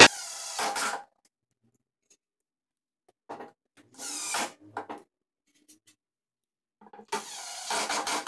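Makita cordless impact driver run in short bursts, driving bolts into the wooden frame of the saw cabinet. There is a sharp knock at the very start, then a burst, a short burst about four seconds in, and a longer one near the end.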